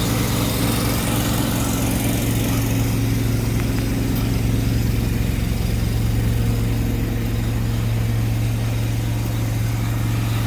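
Pressure washer's engine running steadily at a constant speed.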